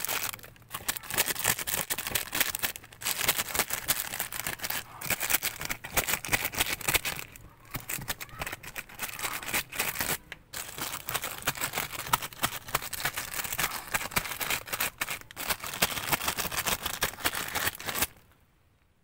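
Plastic bags crinkling and rustling, with dense scratchy scraping as the sawdust surfaces of oyster mushroom baglogs are scraped clean. The noise runs on with a few short breaks and stops abruptly near the end.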